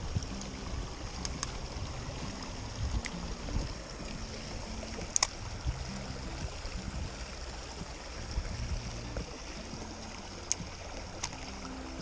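Creek water running steadily, with a low wind rumble on the microphone and a handful of short, sharp clicks, the loudest about five seconds in.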